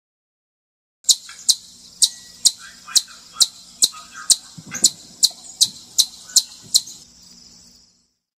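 Chipmunk giving a rapid series of sharp, high 'chip' calls, about two and a half a second, around fourteen in all, starting about a second in and stopping near the end.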